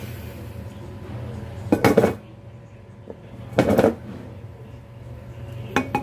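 Metal clatter of a ceiling-fan motor's stator and steel housing being handled and fitted together, in three short bursts about two seconds apart, over a steady low hum.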